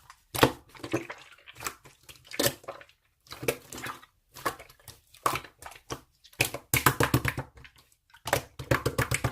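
A run of irregular sharp clicks and taps, some in quick clusters, over a faint low hum.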